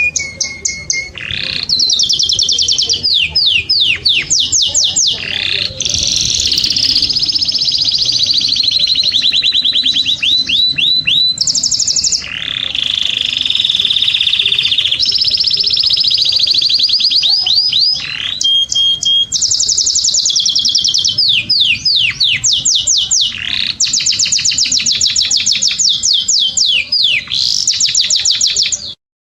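Domestic canary singing a long, unbroken song of rapid high-pitched trills and rolls, phrase after phrase of fast repeated sweeping notes. The song cuts off suddenly near the end.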